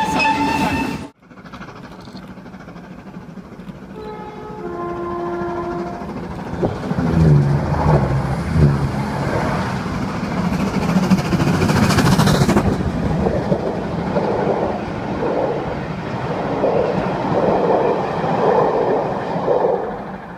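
A train passing a level crossing close by. It sounds two short horn notes, a higher then a lower, then its heavy rumble builds, with a regular beat of wheels over the rail joints as the coaches run past. The first second holds the end of a steam whistle that cuts off suddenly.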